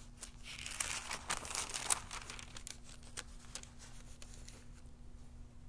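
Thin Bible pages rustling and crinkling as they are leafed through, densest in the first two seconds and then thinning to a few scattered page ticks.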